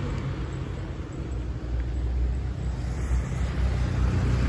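Motorcycle engine on a nearby road, growing louder near the end, over a low rumble of wind on the microphone.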